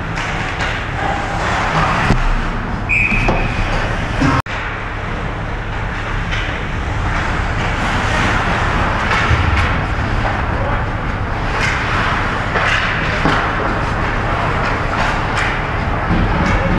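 Ice hockey game noise in a rink: a steady wash of arena noise with scattered sharp clicks and knocks from play on the ice.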